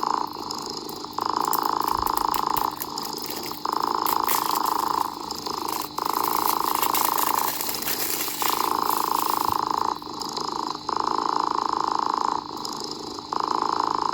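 A cat purring in long, even waves, about one every two and a half seconds. Light crackling ticks run through the first two thirds.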